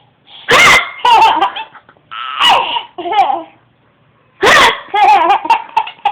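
Baby laughing in three loud bouts. Each bout is set off by a short, harsh noise made to amuse him, followed by wavering belly laughs.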